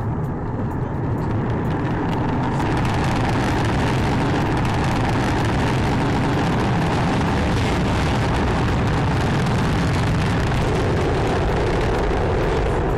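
Proton rocket's engines running at lift-off, heard from a distance as a loud, steady rushing noise that turns brighter and hissier a few seconds in.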